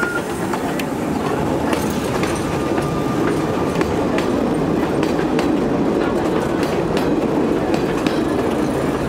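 Vintage Sóller tram and its open wooden trailer cars rolling past close by on the narrow-gauge track: a steady rumble with irregular clicking and clatter of the wheels on the rails.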